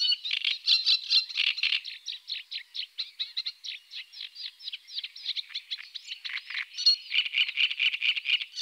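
Great reed warbler singing: a continuous run of rapid, repeated notes, many to the second, with a denser phrase near the end. It cuts off abruptly at the close.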